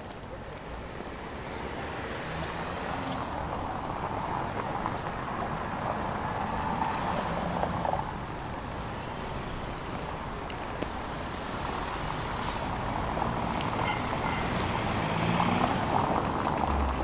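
City street traffic: cars driving over cobblestones, the noise building as vehicles pass and swelling twice, with a sudden drop about halfway.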